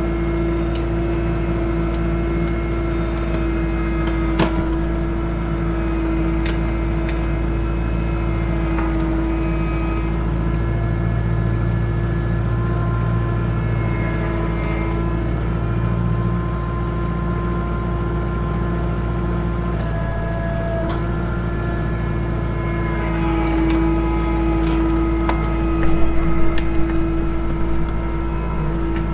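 Kubota tractor's diesel engine running steadily, with a few short knocks and clanks, louder and busier near the end.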